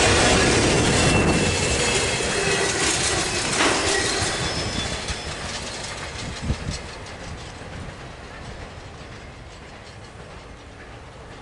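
Tail end of a freight train's intermodal flatcars rolling past on steel rails, wheels clacking with a faint squeal in the first few seconds. The sound fades steadily as the train moves away down the line.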